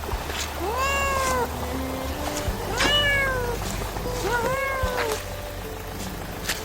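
A cat meowing three times, each call rising and then falling in pitch.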